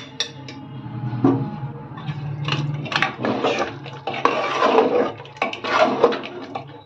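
Long steel ladle stirring a thick curry gravy in an aluminium pressure cooker, with repeated clinks and scrapes against the pot's sides and bottom.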